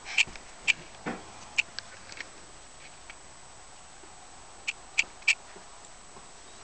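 A series of short, sharp squeaky clicks, about eight in all: a scattered group in the first two seconds, with a dull thump about a second in, then three close together around five seconds in.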